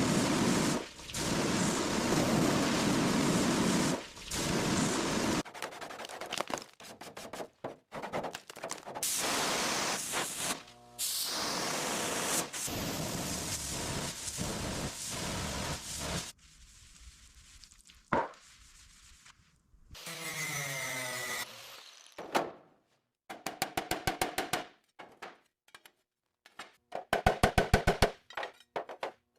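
Quick-cut sequence of car-repair work sounds: stretches of steady noise, scraping and fast runs of knocks, each cut off sharply, with music mixed in.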